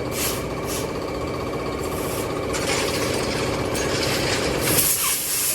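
Pneumatic air tool at a tyre shop running with a fast, steady rattle and several bursts of hissing air. It cuts out near the end.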